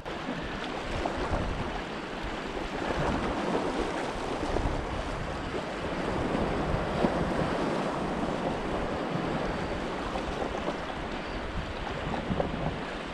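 Small ocean waves sloshing and lapping close by, with wind on the microphone; the wash swells and eases gently.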